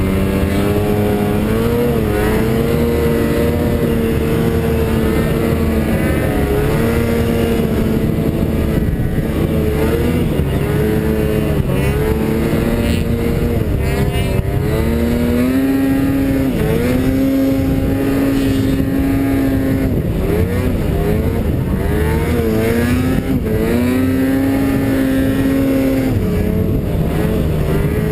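Snowmobile engine running hard under changing throttle, its pitch holding steady for a few seconds at a time and then dipping and climbing again, over and over.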